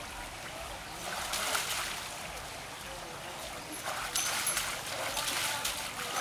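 Water splashing as cattle are washed, with louder splashes about a second in and again over the last two seconds.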